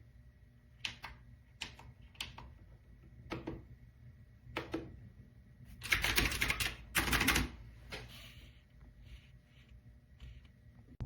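AULA F2088 mechanical keyboard with blue switches being typed on, clicky keystrokes: single key presses about a second apart, then two short runs of rapid typing about six and seven seconds in, then a few lighter taps.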